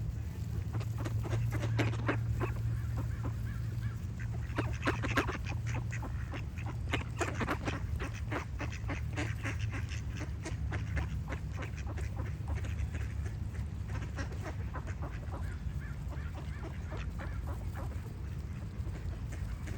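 Ducks quacking in a run of short, rapid calls, busiest from about four to eleven seconds in, over a steady low hum.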